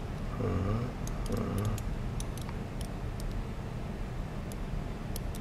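Light, irregular metallic clicks and clinks of a two-piece metal disentanglement puzzle being turned and worked between the fingers. A short, low murmur of a voice comes in the first two seconds.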